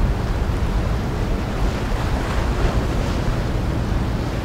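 Wind buffeting the microphone over a steady wash of water, a dense low rumble with hiss above it and no distinct tones or knocks.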